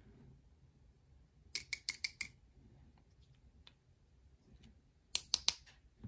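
Small, sharp metallic clicks of steel tweezers against a pin-tumbler lock cylinder as pins and springs are picked out of their chambers: a quick run of about five clicks a couple of seconds in, and another run of about four near the end.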